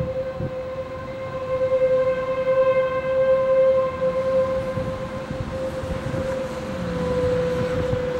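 Outdoor tornado warning siren holding one steady tone that grows louder and softer, over a low rumbling noise.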